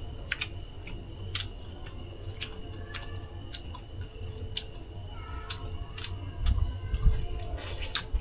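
Eating noises at a meal: sharp clicks and taps about once a second, from food and utensils being handled and chewed, over a steady high-pitched drone. A louder low rumble comes in near the end.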